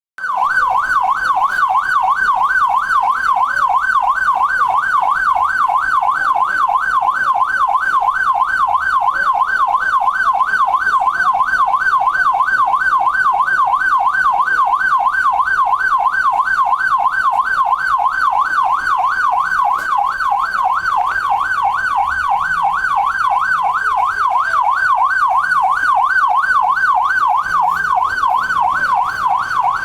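12-volt electronic siren amplifier sounding through a horn loudspeaker in a fast warble (yelp) tone. The pitch swings rapidly up and down, a few times a second, without a break.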